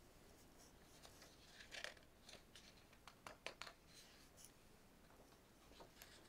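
Faint rustling and small clicks of a picture book's paper pages being handled and turned over.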